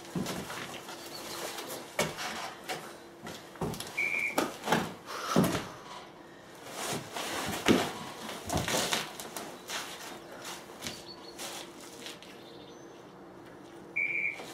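Scuffing, rustling and soft knocks of a person's body and nylon jacket moving on wooden deck boards, in irregular bursts that are densest in the middle. Two short high beeps sound ten seconds apart, about four seconds in and near the end.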